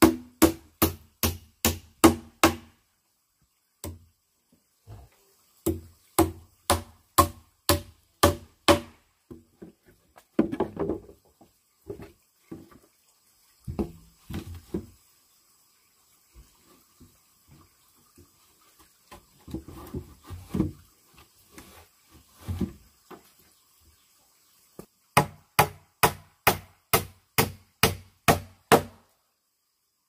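Repeated blows of a tool on wood in three quick runs, about three strikes a second, near the start, around a quarter of the way in and near the end. Scattered quieter knocks and rustling come between the runs.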